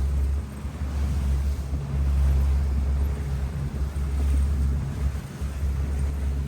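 A small motorboat running across rough, wind-driven lake waves, with heavy wind rumble on the microphone that comes and goes in gusts over the hiss of wind and water.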